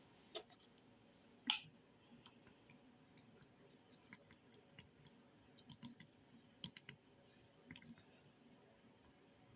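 Faint sounds of slime being handled: scattered small sticky clicks and pops, a slightly louder one about a second and a half in, then a run of light ticks.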